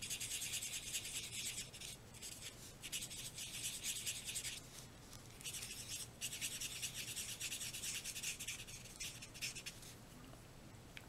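Brush tip of a Stampin' Blends alcohol marker rubbing across cardstock in quick colouring strokes. It makes a soft, scratchy scribbling in runs, broken by a few brief pauses, and fades out near the end.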